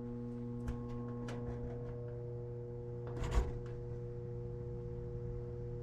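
Goodman Dependable 92 furnace blower motor powered but locked up, giving a steady electrical hum without spinning: a sign of a seized, failed motor. A few light clicks and a short knock about three seconds in.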